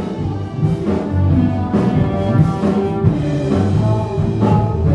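Music from a band playing in the next room: sustained instrument notes with drum hits about once a second.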